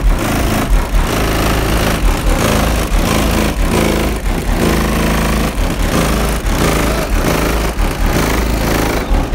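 Car audio system with four 12-inch Resilient Sounds Platinum subwoofers playing a bass-heavy hip-hop track at high volume, heard from just outside the station wagon. The deep bass notes hit in a beat, and the whole sound is distorted and buzzy.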